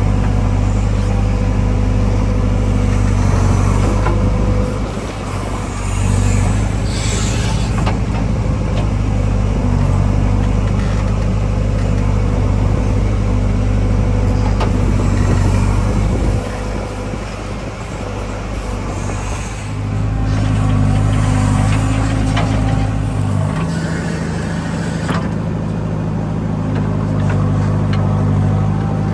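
A backhoe loader's diesel engine running at work. Its note drops and rises several times as the load changes, and there is a brief hiss about seven seconds in.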